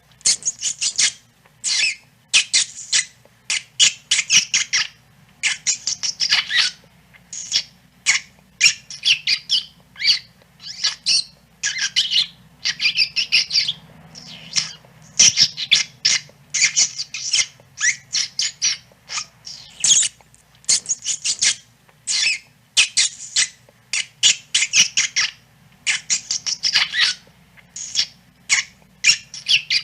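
Rat squeaking: rapid runs of short, high-pitched squeaks in clusters of several at a time, with brief gaps between clusters.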